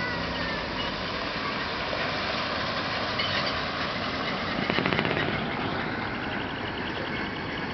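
Large diesel concrete mixer truck, a Hino, running steadily as it drives slowly past. A brief run of rapid engine pulses about five seconds in is the loudest moment, as the truck passes closest.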